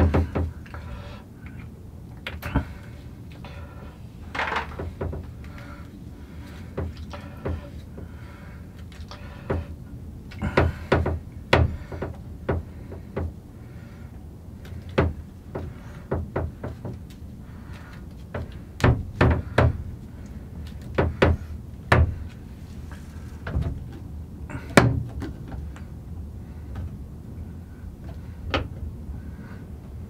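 Plastic handheld shower head and metal shower-hose fitting being handled and screwed together by hand, then set into a wall bracket: scattered clicks, taps and knocks at irregular intervals, with a low steady hum underneath.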